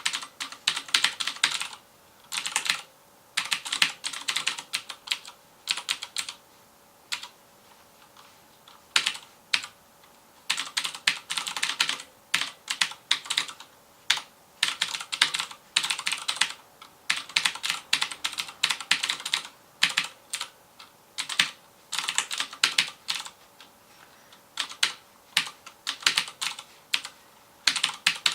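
Typing on a FILCO Majestouch Convertible 2 mechanical keyboard with Cherry MX Blue clicky switches: rapid keystrokes in bursts of a second or two with short pauses between, and only a few scattered keystrokes about six to nine seconds in.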